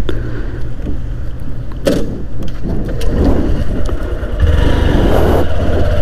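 Honda SP125 motorcycle's single-cylinder engine running with a steady low pulse, getting louder from about four and a half seconds in, with a short click about two seconds in.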